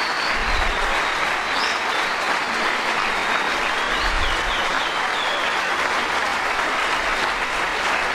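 Sustained applause from an audience, steady and unbroken at the end of a recited speech.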